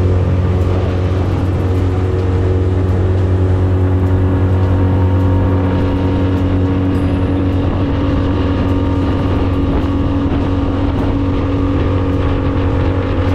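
Outboard motor running steadily at cruising speed, pushing an aluminium dinghy across open water, with the rush of water along the hull beneath it.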